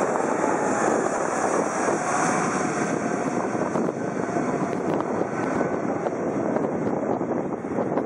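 Airbus A320-family airliner's twin jet engines passing low overhead on landing approach: a loud, steady roar with a high whine that eases slightly about halfway through as the jet moves away.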